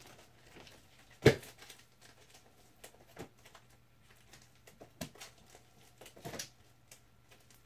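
Quiet handling of bagged-and-boarded comic books being sorted, with one sharp knock about a second in and a few softer taps and rustles later, over a faint low hum.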